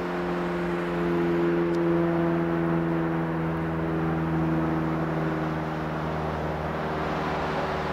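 Single-engine propeller aircraft droning overhead: a steady engine note with strong even overtones, its pitch sinking slightly as it passes.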